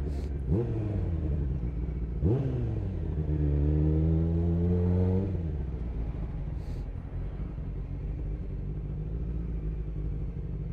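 Sportbike engine at low speed in traffic: two quick throttle blips, then it pulls up through the revs for about two seconds and drops back to steady low running.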